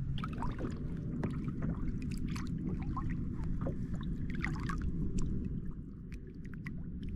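Small splashes and trickles of water as a big speckled trout is held in the water by hand beside a kayak to be released, over a steady low rumble.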